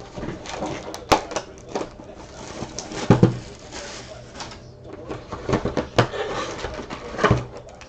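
Trading-card boxes and packs being handled and opened: rustling of packaging with irregular clicks and taps, a longer rustle from about one second in to about four and a half seconds in.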